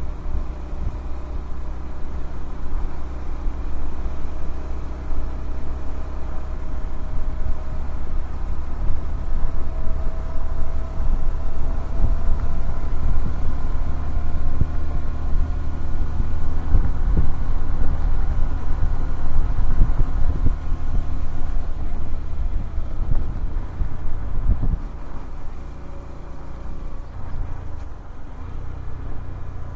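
Honda CBF125R's single-cylinder four-stroke engine running steadily while riding, its pitch rising gently for a few seconds, under heavy wind rumble on the microphone. About 25 seconds in, the wind rumble and overall loudness drop as the bike eases off.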